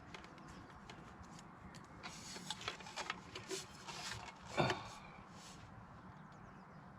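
Handling noises while working: a run of light rustles and small clicks starting about two seconds in, with one louder knock a little before the end of the run.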